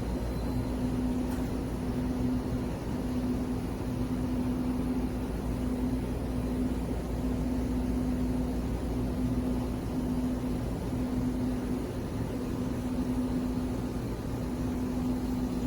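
A steady low mechanical drone with a constant hum.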